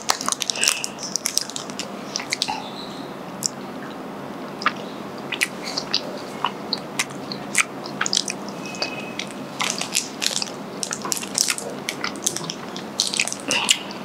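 Small clicks and crinkles of a white chocolate bar's wrapper being handled and a piece snapped off, with close chewing; the clicks come sparsely at first and more thickly in the second half.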